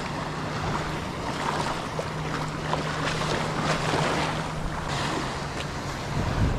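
Small waves lapping and water sloshing in shallow surf, with wind on the microphone and a steady low hum underneath.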